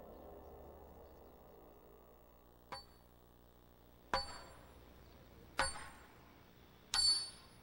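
Hammer blows on a metal chisel cutting into a limestone block: four sharp strikes about a second and a half apart, each with a short metallic ring, the first one lighter.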